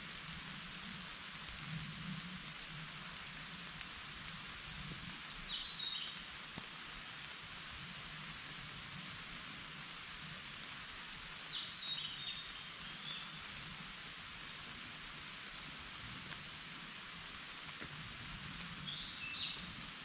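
Steady rain falling on a forest, with a bird giving a short call phrase three times, about six or seven seconds apart, and faint high chirps in the background.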